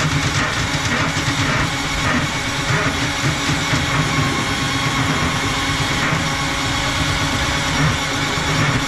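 A motor running steadily, with a low rumble under a constant higher hiss.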